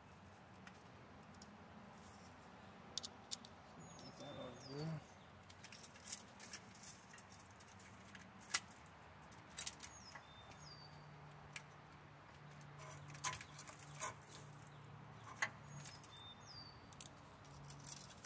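Scattered clicks and taps of hand tools working on an engine, with a bird giving a short falling chirp three times, about six seconds apart.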